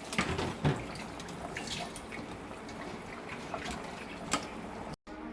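Water running at a kitchen sink, with a few small knocks and clinks scattered through.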